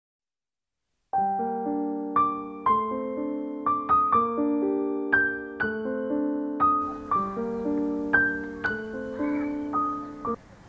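Short intro music on piano: struck notes with chords, about two a second. It begins about a second in and cuts off abruptly near the end.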